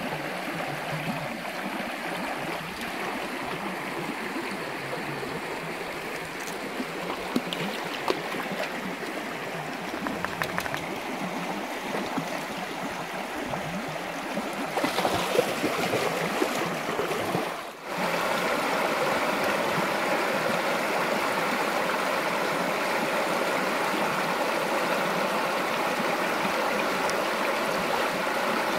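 Running water of a small arroyo stream, flowing and gurgling. About two-thirds of the way through it cuts out for a moment, then returns louder and steadier.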